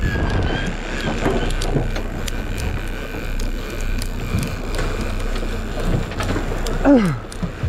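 Steady rumble of a boat's motor with wind and water noise on the open ocean, and a short sound sliding down in pitch near the end.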